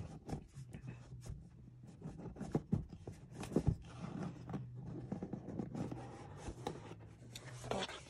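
Cardboard box being handled and its lid lifted off: soft rubbing and scraping of cardboard with scattered light taps, the sharpest a few knocks around the middle.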